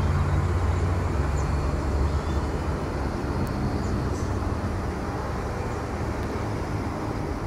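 Low, steady engine rumble from a distant vehicle over a broad outdoor hiss, easing slightly after about two seconds.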